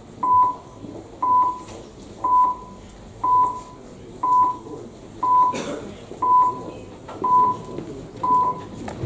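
Council hall electronic voting system sounding its registration signal: a short, single-pitched beep about once a second, nine beeps in a row, while deputies register. A low murmur of the hall runs under it.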